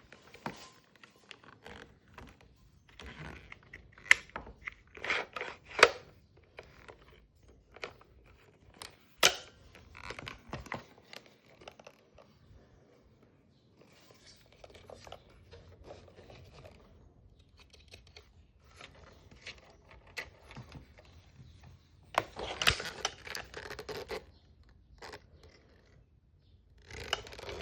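Handling noise from a vintage JAC MAC-10 gas airsoft gun: irregular sharp clicks, knocks and short scraping rattles of its hard plastic and metal parts. Quiet gaps alternate with denser stretches of rattling, the busiest about two thirds of the way in.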